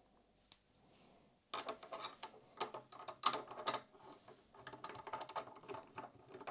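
Metal pressing die being screwed by hand into a Presslug slug press. A couple of faint clicks, then from about a second and a half in a run of irregular small metallic clicks and scrapes as the part turns in its threads.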